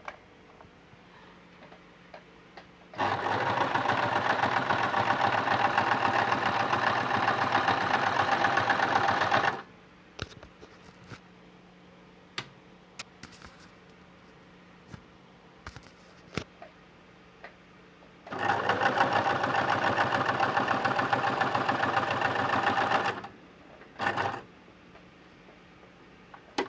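Brother LS-2125 electric sewing machine running and stitching in two long runs of about six and five seconds, then a short burst near the end, with light clicks between the runs. It is a test seam with the needle correctly reinstalled, the machine sewing properly again.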